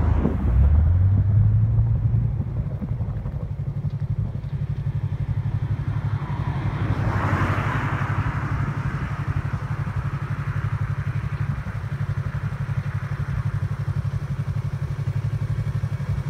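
Motorcycle engine running at a steady idle with an even low pulse. Its pitch rises briefly in the first two seconds, and a brief whoosh passes about seven seconds in.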